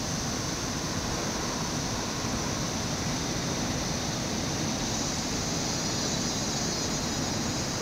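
Steady ambient noise: an even hiss that holds at one level with no breaks.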